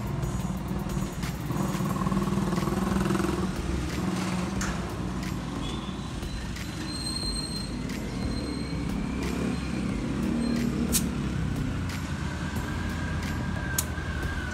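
Passing road traffic: vehicle engines running in a steady rumble, with an engine note that rises and falls twice in the second half and a few sharp clicks.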